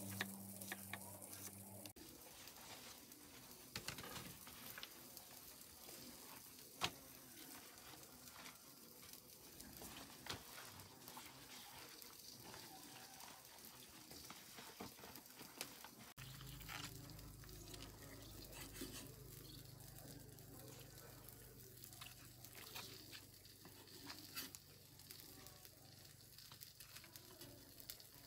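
Faint handling sounds of food preparation: scattered light taps and clicks as fruit pieces and large leaves are handled on a wooden chopping block and woven tray, over a soft hiss. A low steady hum comes in about halfway.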